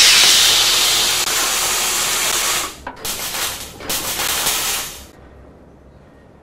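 Hissing sound effect of the 40 Acres and a Mule Filmworks logo: a loud hiss starting suddenly and lasting about two and a half seconds, then two shorter bursts about a second apart, then only a faint hiss.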